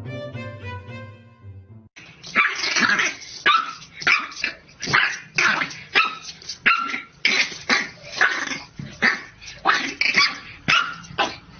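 Background music for the first two seconds, then a white bulldog puppy barking at its own reflection in a mirror: short, sharp puppy barks, one to two a second, over and over.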